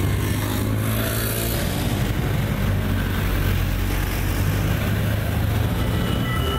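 City street traffic from a video's soundtrack: cars passing through a busy junction with a steady low hum. Near the end, a few steady electronic tones begin.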